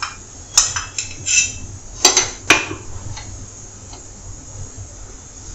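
A handful of sharp clinks and knocks from a small metal tadka pan on a gas stove grate and a ceramic cup as oil is poured into the pan, some in quick pairs, all within the first three seconds; then only a steady low background noise.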